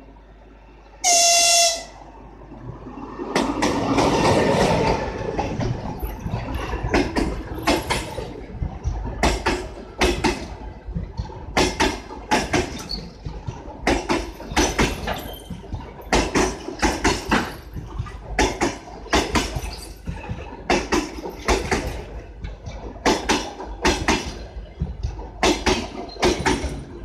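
An EP20 electric locomotive gives one short, loud horn blast about a second in, then rolls past at the head of a passenger train as it arrives at the station. The coach wheels clatter in a steady, repeating rhythm over the rail joints.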